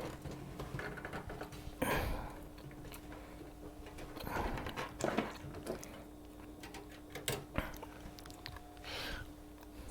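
Scattered handling noises as power cables and connectors are plugged into a desktop computer: short clicks and rustles, the strongest about 2, 4.5, 5 and 9 seconds in, over a faint steady hum.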